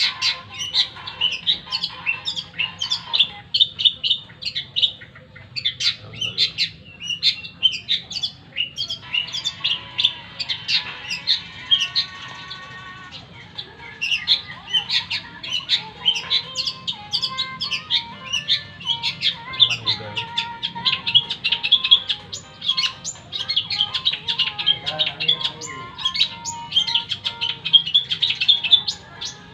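Long-tailed shrike (cendet) singing without a break: a rapid, varied stream of short, sharp chirps and whistles, with some lower held notes mixed in around the middle.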